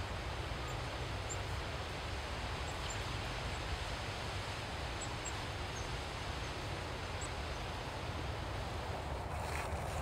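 Steady wind: an even rushing hiss with a low rumble, and a few faint, brief high chirps. Near the end, a step crunches in dry leaves.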